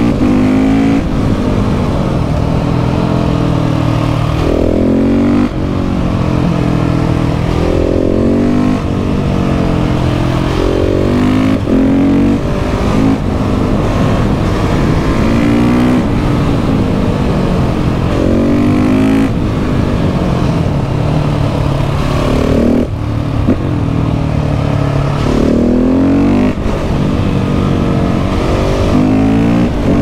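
KTM 690 SMC R's single-cylinder engine heard from on board while ridden hard, its revs climbing in repeated pulls and falling back between them, with a few brief sharp breaks in the note.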